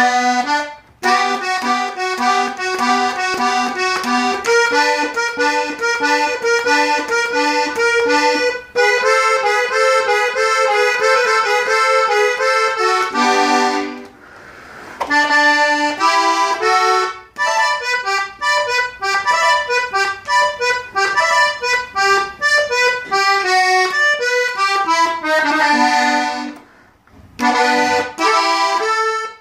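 Hohner Compadre three-row diatonic button accordion playing a quick melody line, note after note, with brief breaks about a second in, around 14 seconds in, and near the end.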